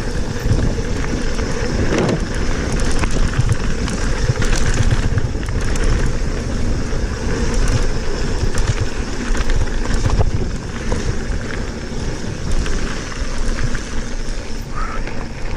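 Santa Cruz Bronson mountain bike rolling over a gravel trail: a steady rumble of tyres on loose stones with frequent clicks and rattles from the bike, and wind buffeting the microphone.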